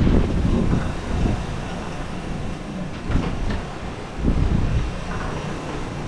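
Wind buffeting the microphone and sea rushing past the hull of a sailboat under way in a squall, a steady low rumble that eases a little after the first second or two. There are a few light knocks around the middle.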